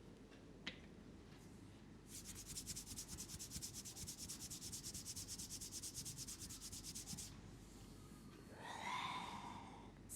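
Massage rubbing: brisk, evenly spaced strokes, about nine a second, lasting some five seconds. Near the end comes a short pitched sound with overtones, the loudest moment.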